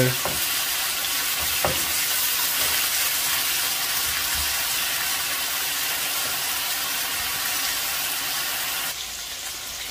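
Boneless chicken strips sizzling in hot oil in a non-stick wok while being stirred with a wooden spatula. The sizzle is steady, with a faint knock about two seconds in, and turns quieter about nine seconds in.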